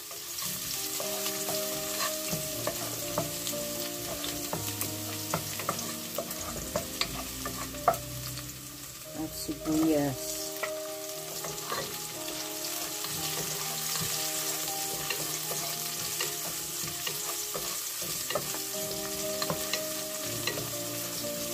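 Minced garlic sizzling in hot oil in a nonstick pot, stirred with a wooden spoon that clicks and scrapes against the pot. About ten seconds in, sliced red onion goes in and the sizzling and stirring carry on.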